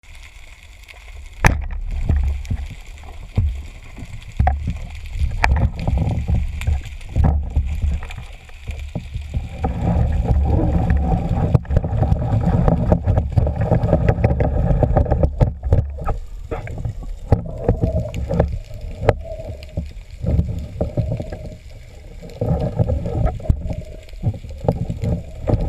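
Muffled water sloshing and gurgling with a deep rumble and many scattered sharp clicks and knocks, as heard by a GoPro in its waterproof housing during a spearfishing dive.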